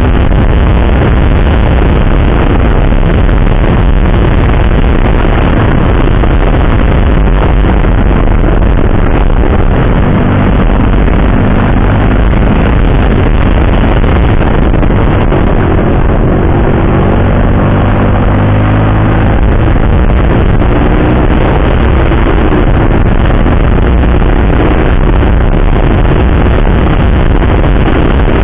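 Motorcycle riding at speed: heavy wind rush over the microphone with the Yamaha sport bike's engine running underneath, its pitch rising and falling with the throttle between about ten and twenty seconds in.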